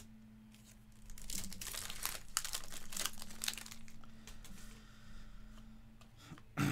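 Crinkling and tearing of a Topps Cosmic Chrome baseball card pack wrapper being opened by hand: a run of crackles starting about a second in and lasting a few seconds, with a shorter crinkle near the end.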